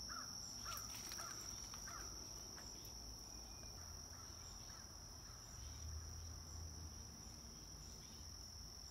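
Insects calling in a steady, unbroken high-pitched drone, faint under a low outdoor background.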